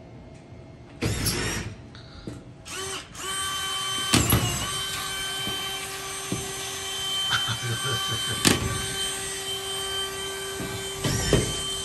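Cordless drill driving screws into drywall: a short burst of noise about a second in, then from about three seconds on a steady motor whine, broken by a few sharp clicks.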